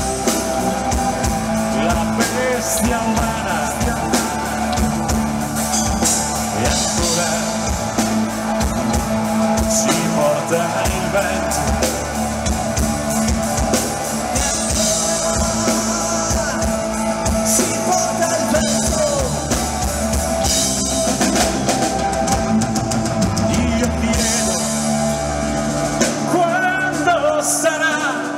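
Live rock band playing a song with drum kit, keyboards and guitar. The deep bass drops out near the end.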